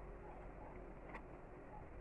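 Faint chewing of a pear, with one soft, wet click about a second in.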